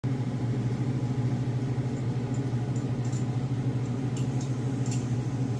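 A steady low hum that starts abruptly and holds an even level, with a few faint clicks about two to five seconds in.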